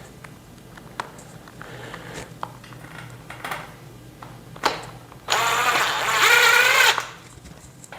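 Electric drill/driver motor whining for about a second and a half as it drives a screw, its pitch dipping and climbing under load near the end. Before it come a few light clicks and taps of screws and metal parts being handled.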